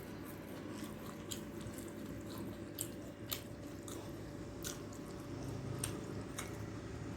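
Close-up chewing and mouth sounds of a person eating, with irregular short, sharp wet clicks.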